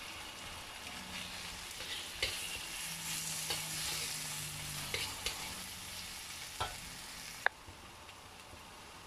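Chunks of raw chicken breast sizzling in a hot oiled wok while a slotted metal spatula stirs them, scraping and clacking against the pan. A sharp clack comes about seven and a half seconds in, after which the sizzle drops suddenly to a quieter hiss.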